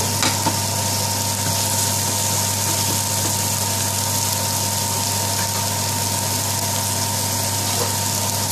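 Sliced onions frying in a shallow layer of hot vegetable oil in a non-stick pan: a steady sizzle over a constant low hum, with a spatula clicking against the pan just at the start.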